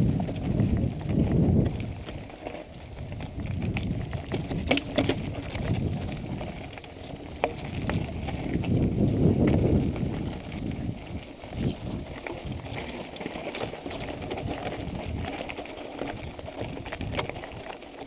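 Mountain bike riding over a rough, stony dirt trail: tyres crunching on loose dirt and stones and the bike rattling over bumps, with scattered sharp clicks. A low rumbling rush swells near the start and again about nine seconds in.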